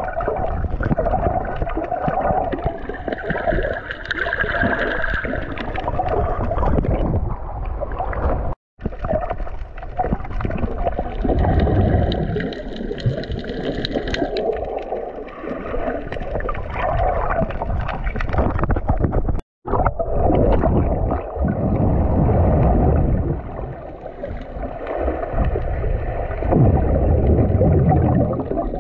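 Muffled underwater rumble and sloshing of sea water moving over a GoPro camera held just below the surface. The noise is deep and uneven, and it cuts out completely twice for a moment, about a third and two thirds of the way through.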